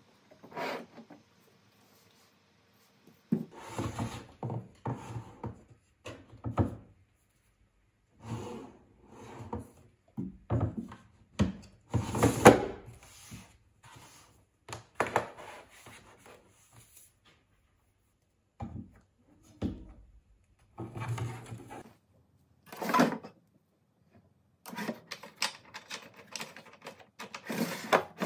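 Desk items being moved about and set down on a desk and its wooden monitor shelf: irregular knocks, clacks and rubbing, in short clusters with silent pauses between.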